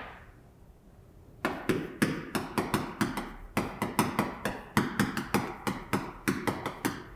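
Chalk writing on a chalkboard: a quick run of sharp taps and short scrapes, about three or four strokes a second, starting about a second and a half in.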